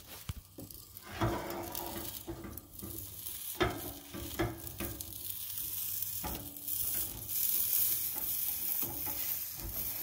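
Pancake batter sizzling in a blue enamelware frying pan on a camp stove, with a slotted plastic spatula scraping and tapping against the pan a few times as the pancake is worked loose to flip it.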